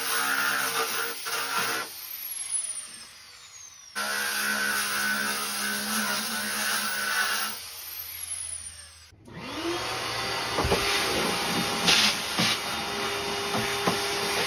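Random orbital sander running on a fiberglass engine pan in short cut-together bursts, then a shop vacuum motor starting up about nine seconds in and running as it sucks up the sanding dust.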